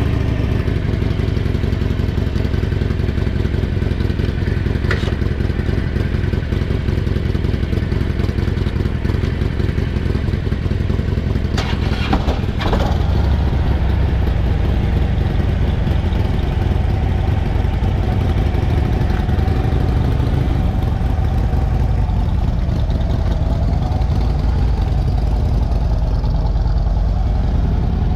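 Harley-Davidson V-twin motorcycle engine idling steadily just after being started, with a couple of sharp clacks about twelve seconds in.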